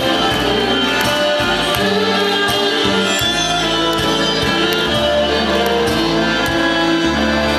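Live folk band playing: violin, accordion, upright bass and cimbalom, with the bass sounding held notes that change every half second to a second under the melody.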